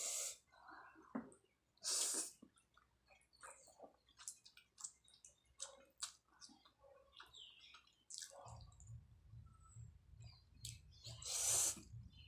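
Close-miked eating of spicy cheese instant ramen noodles: hissing slurps at the start, about two seconds in and near the end, with wet chewing and mouth clicks in between.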